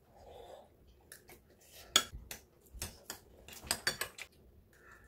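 Metal forks and spoons clinking and scraping against ceramic rice bowls during a meal: a string of sharp separate clinks, the loudest about two seconds in, with a quick cluster of them near the four-second mark.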